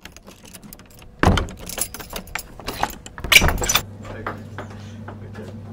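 A run of sharp clicks and knocks, with two louder thumps about a second in and about three and a half seconds in; then a steady low hum sets in.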